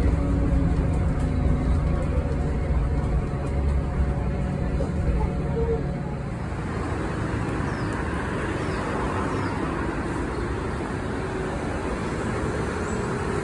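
Yutong E12 battery-electric bus: a steady low hum from the moving bus in the cabin, then from about six seconds in a broader, even rumble of the bus and traffic heard from the roadside.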